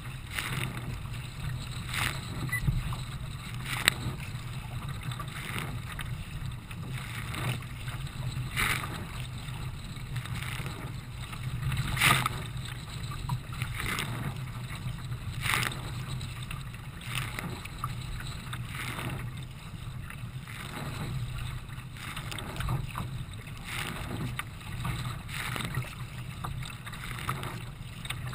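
Racing kayaks paddled hard through choppy water: a steady low rush of water past the hull, broken by a splash about every one and a half to two seconds as the paddle blades strike the water.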